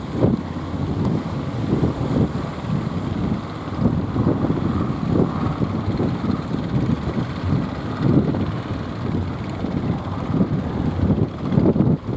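Strong wind buffeting the microphone in uneven gusts, a low rumble that rises and falls throughout.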